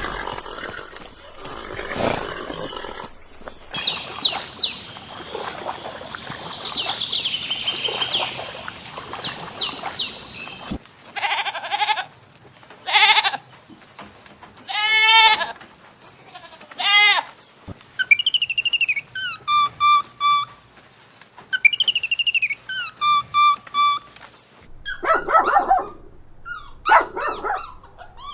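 A sequence of animal calls of several kinds in turn: high falling chirps, then goats bleating in short calls, one with a quivering, wavering pitch, then further calls that fall and hold steady tones.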